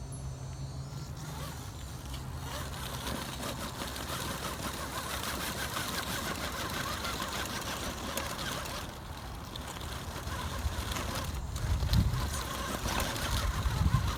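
Axial SCX10 RC rock crawler's electric motor and gears whirring as the truck crawls up a rock, with its tyres scrabbling on stone. A few loud low rumbles come near the end.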